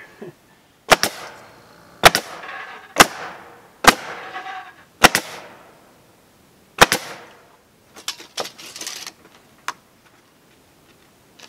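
Senco 7/16-inch crown pneumatic stapler firing staples into cedar shingles: six sharp shots about a second apart, each followed by a short hiss. After them come softer scraping sounds and a click.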